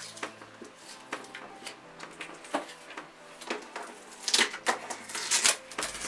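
A strip of tape being picked at and peeled off a mini fridge's door: scattered light scratches and clicks, then a louder run of crackling tearing from about four to five and a half seconds in.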